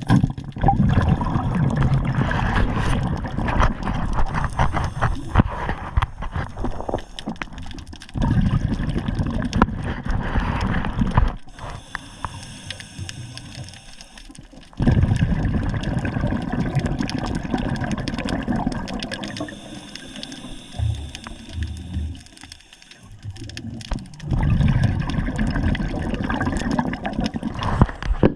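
Water sloshing and gurgling in heavy surges lasting several seconds, with quieter spells between.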